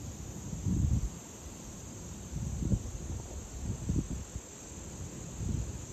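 Steady high-pitched chirring of insects, with irregular low gusts of wind buffeting the microphone.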